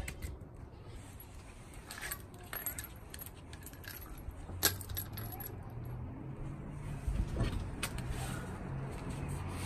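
Loose steel lug nuts clinking by hand against each other and the concrete, a series of sharp separate metallic clicks, then a dull thump about seven seconds in as the car's wheel comes off the hub.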